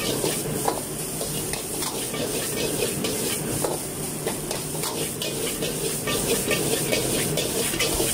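Rice frying and sizzling in a wok, with a steady hiss. A metal ladle scrapes and knocks against the pan over and over as the rice is stirred and tossed.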